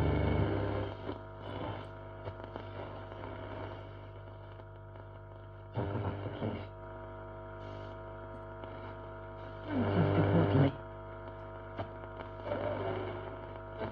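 1939 Mende Super MS216-W valve radio being tuned across a band: stations briefly come in as short bursts of broadcast sound, about four times, the loudest about two-thirds of the way through, between stretches of steady hum.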